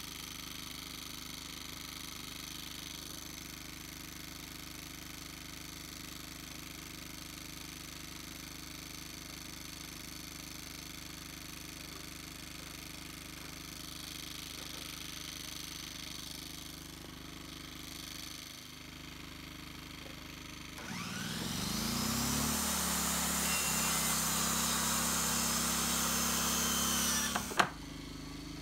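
A low steady hum; then, about three quarters of the way in, an electric circular saw spins up with a rising whine and cuts through a wooden board for about six seconds, stopping abruptly, with a single click just after.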